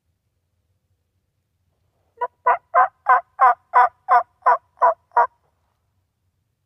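A turkey yelping: a run of about ten evenly spaced yelps, about three a second, starting about two seconds in and lasting about three seconds.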